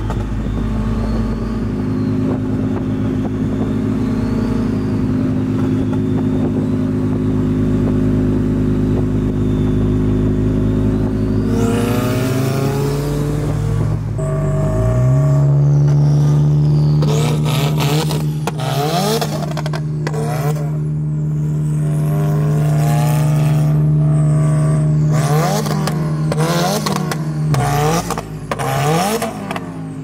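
Subaru WRX's turbocharged flat-four running through a straight side-exit exhaust, first cruising at steady revs, then climbing in revs around the middle. From about two thirds of the way in, a string of sharp exhaust pops and bangs crackles over the steady drone: the tuned car's exhaust spitting flames.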